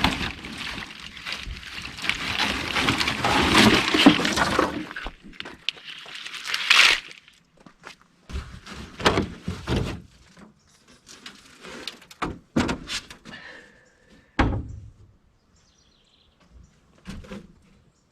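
Wiring harness being pulled and handled: a few seconds of continuous crackling rustle, then scattered clicks and knocks, with one louder thunk near the end.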